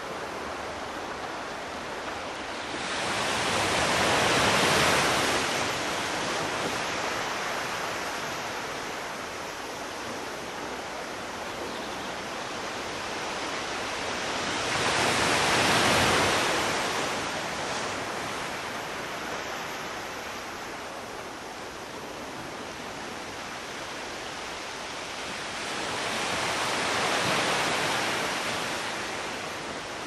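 Ocean surf: a steady wash of water, with waves breaking three times, each swelling louder and fading, about eleven seconds apart.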